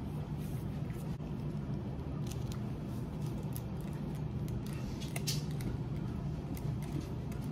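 Small plastic soy sauce packet being fiddled with and torn open by hand: a few faint crinkles and scratches, with a short tearing sound about five seconds in, over a steady low hum.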